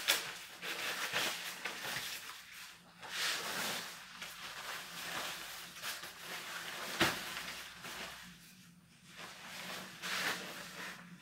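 Rustling and crinkling of thin synthetic raincoats being handled and turned over by hand, coming and going unevenly, with one sharp click about seven seconds in.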